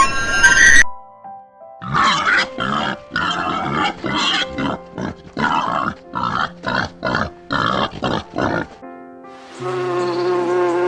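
An animal grunting in a quick series of about a dozen short, harsh calls. Near the end a steady held musical tone comes in.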